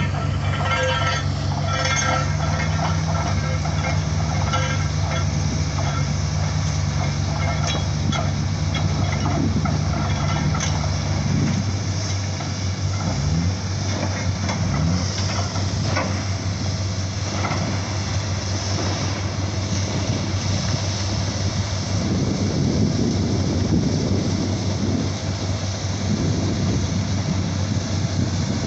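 Borewell drilling rig's engine and air compressor running with a steady drone, with some metallic clinking early on. Part of the drone's low hum drops away about eleven seconds in.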